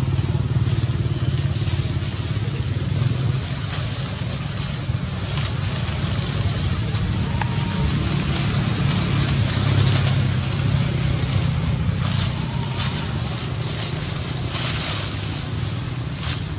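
A steady low motor-like drone, like an engine running, with a steady high hiss over it and a few brief rustles.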